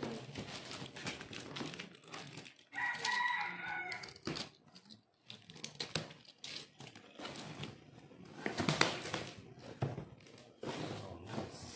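Cardboard scraping, rubbing and knocking as a boxed air fryer is worked up and out of its cardboard shipping carton, with sharp clicks, the loudest near the end. About three seconds in, a bird's drawn-out wavering call sounds once for just over a second.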